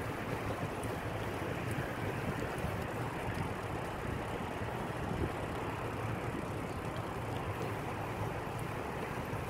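Steady wind rushing over a phone's microphone while riding a bicycle downhill, with no breaks.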